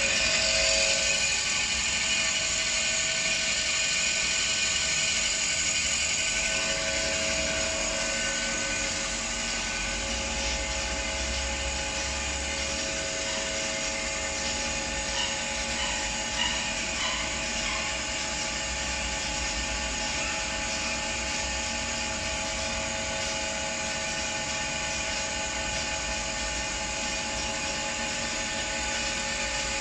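Napkin paper two-colour printing and folding machine running steadily: a continuous mechanical whine with several held tones over a constant rushing noise, with a few light ticks about halfway through.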